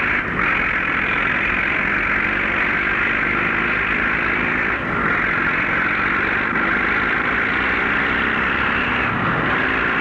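Diesel engine of an International Harvester TD24 crawler bulldozer running steadily, heard through the steady hiss of an old film soundtrack.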